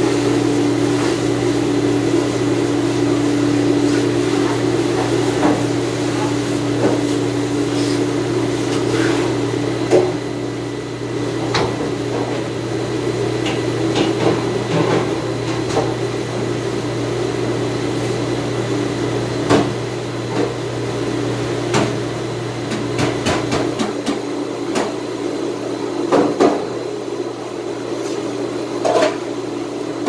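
Steady hum of commercial dish-room machinery, broken by irregular clatter and knocks of dishes and racks being handled.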